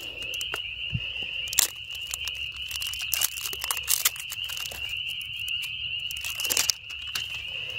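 A chorus of frogs calling steadily, a constant high-pitched trilling, with scattered clicks and plastic rustles of a knife being set down and a cordage jar being handled.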